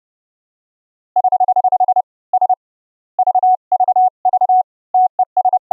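Morse code keyed on a pure sine-wave CW tone from a software oscillator, a single clean tone with no harsh overtones. A fast run of dits starts about a second in, followed by groups of dits and dahs.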